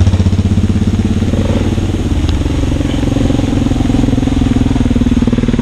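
Motorcycle engine idling with a steady, rapid pulse, while another motorcycle rides up the dirt track towards it.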